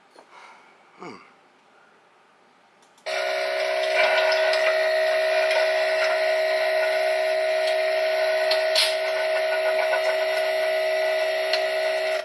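A machine switches on abruptly about three seconds in and runs with a steady whir, a few hum tones over a hiss, then stops suddenly at the end.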